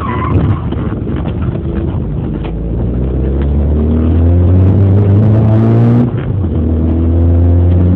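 Renault 19's engine heard from inside the cabin, accelerating with a rising pitch for a few seconds; an upshift about six seconds in drops the pitch, and it then pulls steadily.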